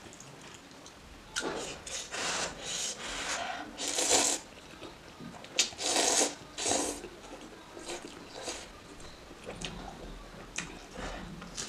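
A person slurping a mouthful of spicy soup noodles in a series of loud, hissing slurps, loudest about four and six seconds in. After that come quieter short clicks and small eating noises.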